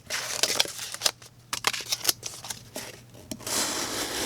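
A folding knife's blade cutting through thick cardboard: a scraping in the first second, then scattered small clicks and crackles, then a steady slicing hiss starting about three and a half seconds in as the blade draws down through the board.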